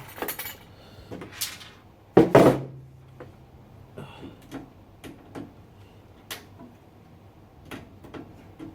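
Clicks and knocks of computer parts being handled and unscrewed during a PC teardown, with one louder clatter about two seconds in and scattered light clicks after it.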